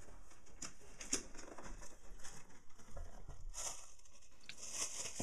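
Hands rustling and crinkling plastic air-pillow packing and a plastic bag, with scrapes of cardboard box flaps, while unpacking a shipping box. Irregular crackles and scrapes, busiest through the middle, with a softer hissing rustle near the end.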